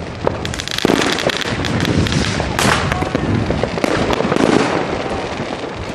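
Many fireworks and firecrackers going off together, a rapid, overlapping run of bangs and crackles, with a louder burst about two and a half seconds in.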